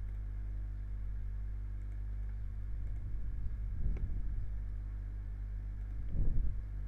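Steady low electrical hum on the microphone, with a single faint click about four seconds in.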